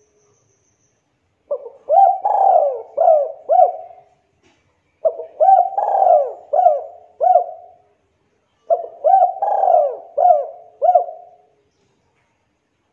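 Spotted dove (tekukur) cooing: three phrases of about five coos each, separated by pauses of about a second.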